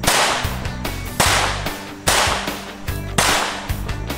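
Four sharp .22 pistol shots about a second apart, each ringing off into echo, over background music.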